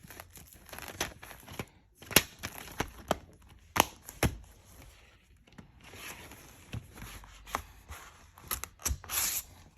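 Plastic DVD case being handled: a string of sharp clicks and taps with rustling in between.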